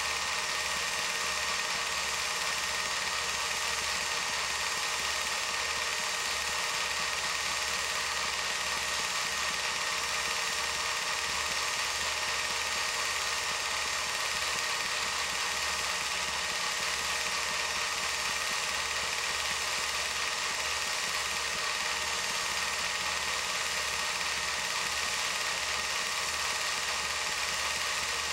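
Film projector running steadily: an even motor whir with a fast, regular flutter from the film mechanism.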